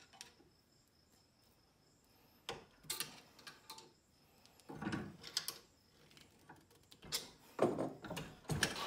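Scattered metal clicks, knocks and scrapes as a screwdriver is levered and twisted through a steel eye bolt clamped in a bench vise, prying the eye open. The clicks come in small clusters, busiest near the end.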